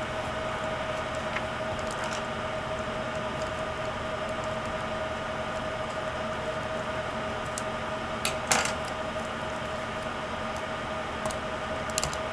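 Steady hiss with a constant faint tone, and a few light clicks from small laptop parts being handled, the clearest about eight seconds in and another near the end.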